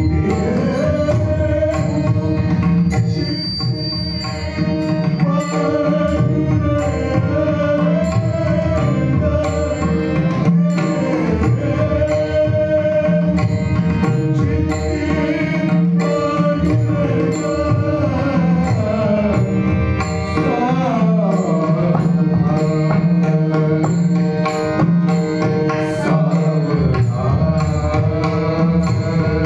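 Devotional bhajan singing: a voice holding long, gliding notes over steady accompanying tones, with mridang drum strokes keeping the rhythm.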